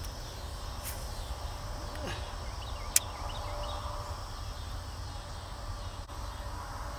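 Quiet outdoor ambience by a pond: a steady low rumble, faint bird chirps, and one sharp click about three seconds in as a hook is worked by hand out of a caught bass's mouth.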